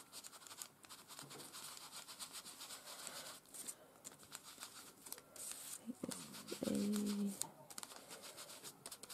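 Quick, scratchy rubbing as a small ink applicator is scrubbed over a die-cut paper rose, applying distress ink. About two-thirds of the way in, a short hummed voice tone sounds over it.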